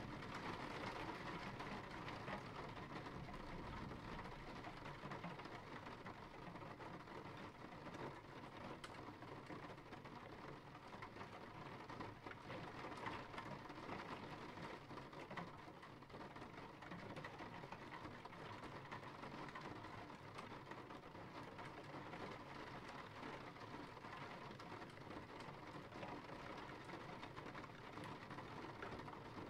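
Steady rain falling, fairly quiet, with scattered single drops ticking on a surface.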